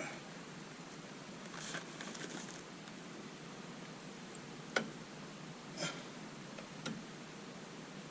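Light handling noise of tools on plumbing fittings: soft rustling, then three short clicks about a second apart, over a faint steady hiss.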